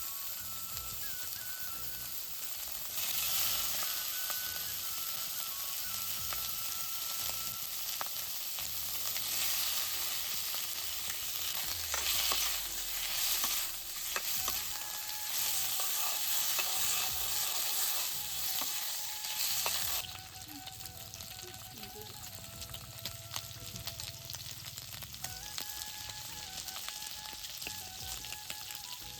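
Pork frying and sizzling in a hot pan as it is stirred, with scattered scrapes. The sizzle grows louder a few seconds in and drops off suddenly about two-thirds of the way through. Soft background music plays underneath.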